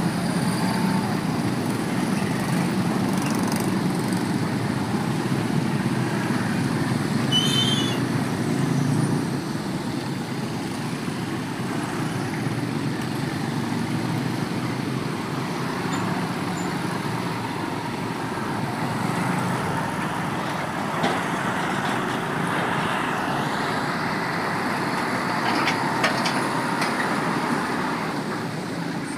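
Road traffic: many motorcycle engines running together, with heavy vehicles such as a tanker truck moving past. A brief high squeal sounds about seven seconds in.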